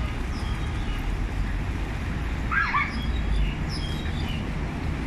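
Steady low rumble of wind and distant traffic, with faint scattered bird chirps and one short, high-pitched yap from a small dog about two and a half seconds in.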